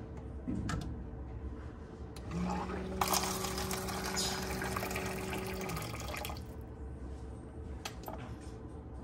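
Water running for about four seconds with a steady low hum under it, starting about two seconds in and stopping about six seconds in. A few light clicks fall before and after it.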